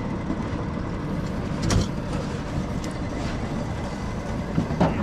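A moving vehicle's steady rumble, with scattered knocks and rattles, the loudest about two seconds in.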